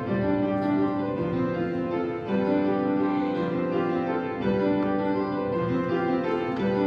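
Background piano music, a melody of held notes changing every second or so.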